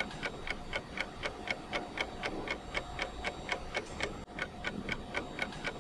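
Steady, even ticking, about four ticks a second, like a clock.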